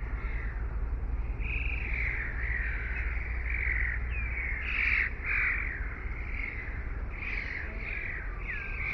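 Canada goose goslings peeping: a run of many short, high chirps, with a couple of falling peeps, over a steady low rumble.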